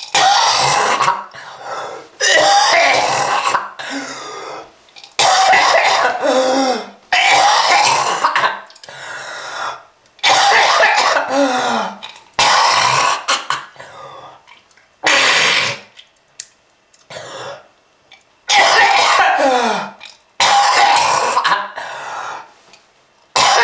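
A person coughing hard and clearing the throat over and over, in about ten harsh fits of a second or so each, two to three seconds apart. Many fits trail off into a rasping voiced sound that falls in pitch.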